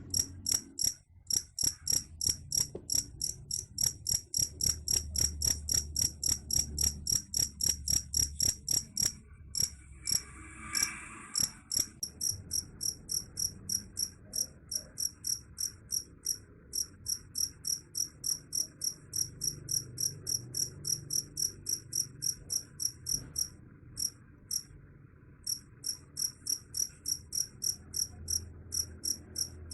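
Cricket chirping steadily: short, high, evenly spaced chirps about three to four a second, with a few brief pauses.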